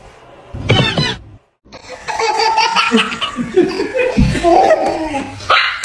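A person laughing hard in long belly laughs. A short loud outburst comes about half a second in, then, after a brief break, unbroken laughter.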